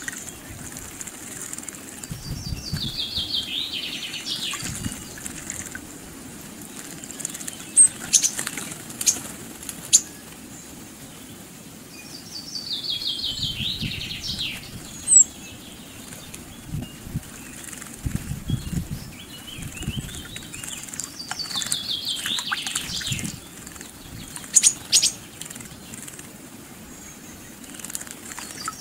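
Great tits bathing in a shallow pond, splashing and fluttering their wings in short bursts. A songbird sings a descending phrase of about two seconds three times, roughly ten seconds apart, with a few sharp high chips in between.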